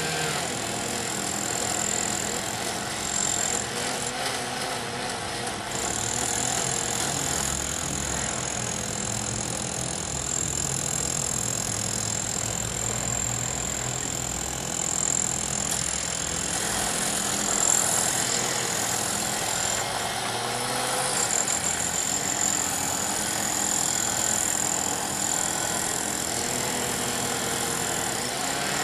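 Steady running of vehicle engines at a street rail junction under repair, with a thin high whine that drops out briefly twice.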